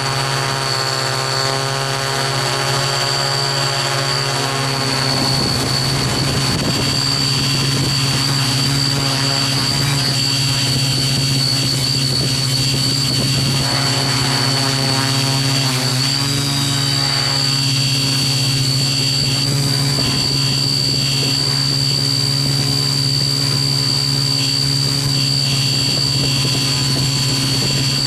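Small camera drone's propellers and motors buzzing steadily while it hovers, with a constant high whine over the low drone. The pitch wavers briefly a few seconds in and again about halfway through as it adjusts.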